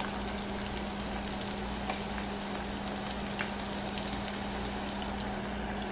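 Breaded brisket croquettes deep-frying in hot oil: a steady bubbling sizzle scattered with small crackling pops. A low steady hum runs underneath.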